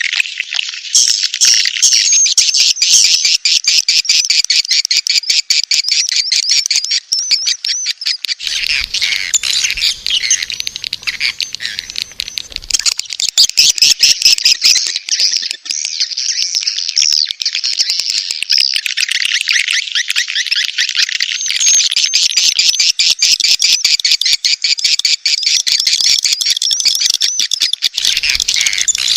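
Edible-nest swiftlets twittering and chirping in a dense, fast chatter with rapid clicking strokes. This is a swiftlet courtship call ('birahi') recording of the kind played to lure swiftlets into a nest house.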